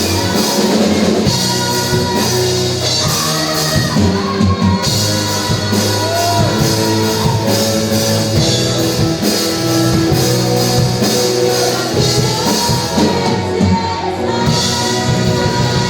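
Live rock band playing a song with drum kit, guitars, bass guitar and keyboards, and a lead singer's voice over them.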